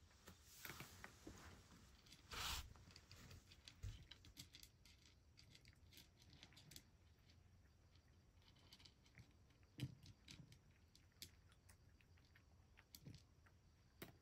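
Cat eating its breakfast: faint, irregular chewing with scattered small clicks.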